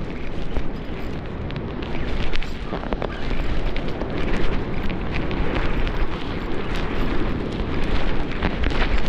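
Wind buffeting the microphone in a steady low rumble, with scattered clicks as a Shimano Twin Power C5000 spinning reel is wound in fast against a hooked fish.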